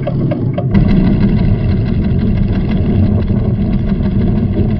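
Cartoon sound effect: rapid, even ticking of a seismograph recorder, then less than a second in a deep, steady rumble of the volcano starts and holds, with faint sustained music tones underneath.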